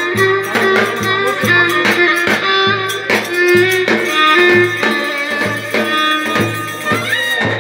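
Black Sea Turkish folk dance tune (oyun havası) with a bowed fiddle playing a quick melody over a steady, evenly struck drum beat.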